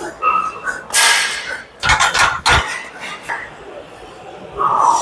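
Steel weight plates and a barbell clinking and clanking against each other, with two heavier knocks about two seconds in.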